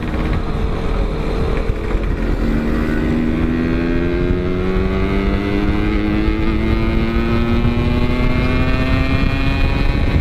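Motorcycle engine under steady acceleration, its pitch climbing slowly from about two seconds in, over heavy wind rumble on the microphone.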